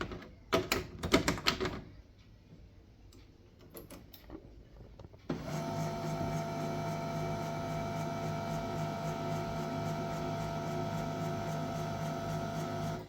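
A few sharp clicks and knocks, then about five seconds in the HP LaserJet M1136 MFP's motor starts abruptly and runs with a steady multi-tone hum for about eight seconds before cutting off: the printer going through its start-up initialisation.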